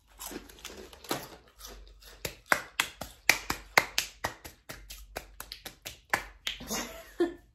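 A quick, irregular run of sharp hand claps and finger snaps, about three a second.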